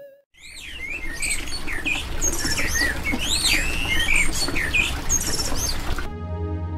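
Songbirds chirping and calling, many quick sweeping chirps over a steady rushing background. It cuts off suddenly near the end as sustained ambient music tones take over.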